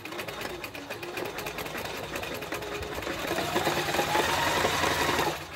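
Privileg Nova electric sewing machine running, stitching a buttonhole with a rapid even needle rhythm. About halfway through it speeds up, the motor whine rising and getting louder, then it stops abruptly near the end.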